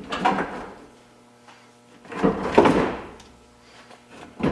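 Heavy vehicle battery being lowered and slid into its tray: scraping, clattering handling sounds, the loudest about two seconds in, and a short sharp knock near the end.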